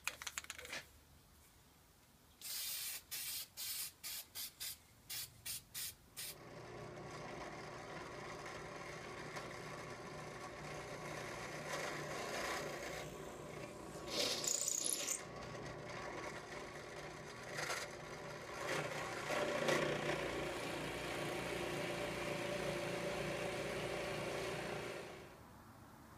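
Aerosol can of polyurethane spraying: one longer hiss, then about six short bursts. Then a drill press runs steadily, its bit boring into a block of wood, and stops near the end.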